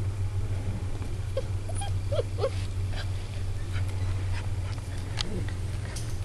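Ibizan hound puppies giving a few short, high whimpers, about four of them close together between one and a half and two and a half seconds in. A steady low hum runs underneath, with scattered light clicks and rustles.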